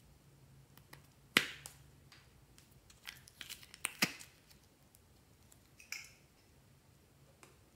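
Soft modeling clay handled close to the microphone as fingers press, twist and tear it: a sharp click about a second and a half in, a cluster of clicks and crackles around three to four seconds, and one smaller click near six seconds.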